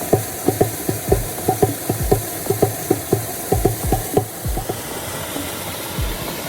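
Background Afrobeat music with a busy pattern of deep drum hits, several a second, over a steady hiss. The drums thin out about two-thirds of the way through.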